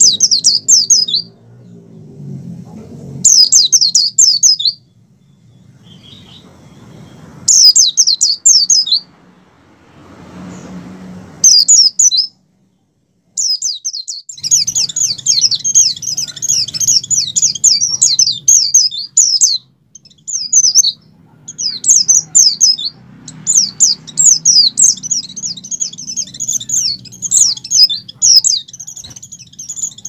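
White-eye (pleci) singing in fast, high twittering bouts. Short bursts of a second or so come first, then long unbroken runs of song from about halfway in. This is the excited song of a pleci in full breeding condition ('over birahi').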